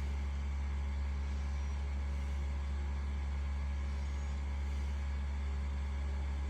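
A steady low hum that does not change, with two faint, short, high chirps in the background.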